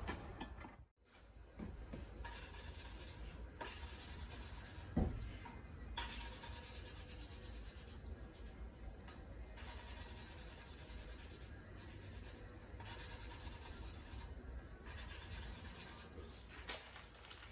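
Faint, steady rubbing from hand work at a bare flathead engine block on its stand, with one short knock about five seconds in.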